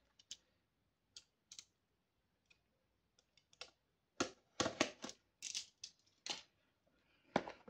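Cardboard toy packaging being handled: scattered light clicks and short rustles, few at first and coming thicker from about four seconds in.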